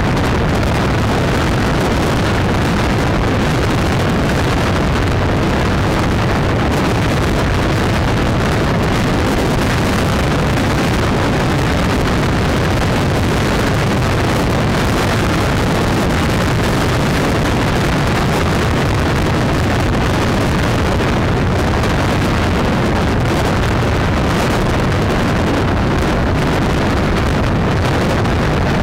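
Steady rush of wind on the microphone with engine and road noise from travelling at motorway speed, unchanging throughout.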